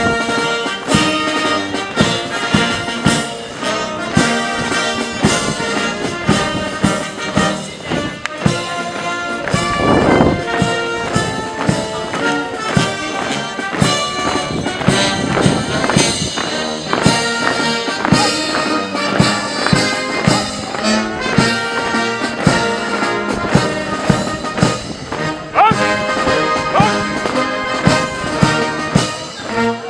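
Military brass band playing a march, with trumpets and trombones over a steady drum beat.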